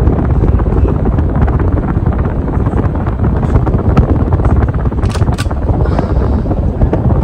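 52-inch Gulf Coast Atlantis ceiling fan running on high speed, its strong downdraft buffeting the microphone with a steady low rumble of wind noise. Two brief sharp sounds come about five seconds in.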